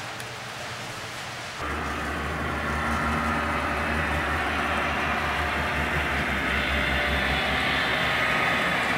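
HO scale model diesel locomotives approaching on the track: a steady low hum with whining tones above it, slowly growing louder. It starts abruptly about a second and a half in; before that there is only a steady hiss.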